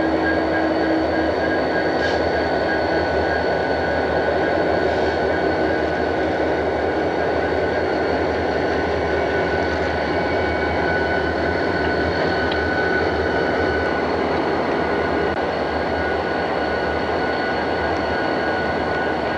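Canadian National freight train rolling past close by: a steady rumble of wheels and diesel locomotives, with a thin steady whine above it.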